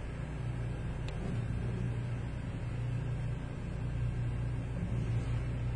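Steady low mechanical hum, with a faint tick about a second in.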